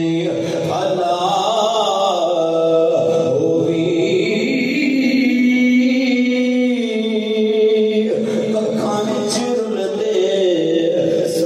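A man singing a naat in long held notes that slide slowly from one pitch to the next, amplified through a microphone.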